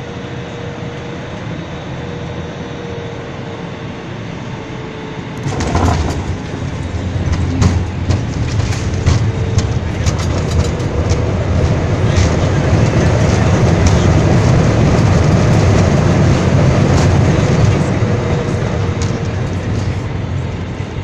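A jet airliner touching down: a steady cabin hum, then about five seconds in a sudden jolt into a loud rumble of the wheels on the runway with repeated knocks. The roar of the engines braking in reverse thrust builds to a peak and eases off near the end.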